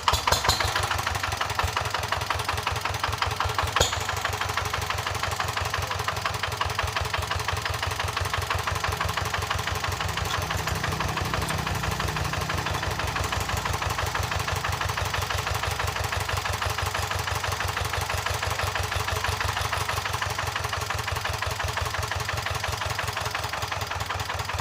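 Engine idling steadily through a newly fitted exhaust pipe, its firing pulses even and regular. There is one sharp tick about four seconds in.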